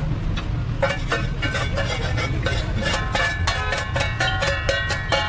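Background music with a quick, bright percussive beat that starts about a second in, over a steady low rumble.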